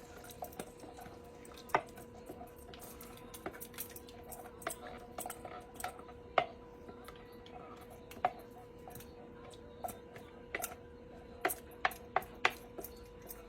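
Kitchen utensils and dishes clinking and knocking now and then, light irregular clinks, over a steady hum.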